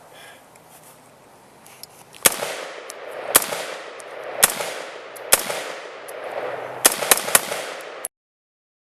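Seven gunshots from a firearm fitted with a prototype flash suppressor/compensator, each followed by echo. The first four come about a second apart, then three rapid shots near the end, and the sound cuts off suddenly just after.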